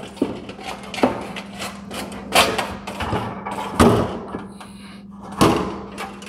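Sheet-metal control-gear plate of a ship's mast floodlight being set back into its metal housing: a series of metal knocks and clatter, the loudest about two and a half, four and five and a half seconds in.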